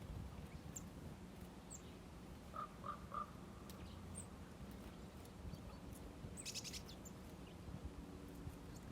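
Small wild birds calling faintly: a few brief high chirps, three lower short calls about two and a half to three seconds in, and a short rapid buzzy call about six and a half seconds in, over a low steady background hum.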